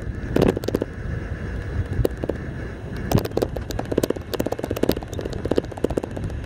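Golf cart driving along a road: a steady low rumble with wind on the microphone, broken by frequent irregular sharp crackles and knocks.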